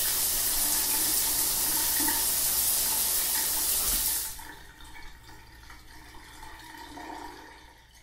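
Steady rushing noise like a tap running, cutting off abruptly about four seconds in, then a faint fading tail.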